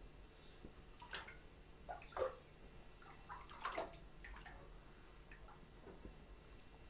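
Shallow bathwater splashing faintly in a bathtub as a toddler moves about in it: a few short splashes, the loudest about two seconds in, with another cluster near four seconds.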